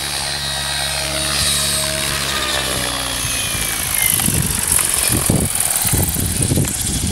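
Blade 700X electric RC helicopter's motor whine and rotor hum, sinking slowly in pitch as it descends to land. From about four seconds in, as it sets down, a gusty, irregular low rumble rises over it.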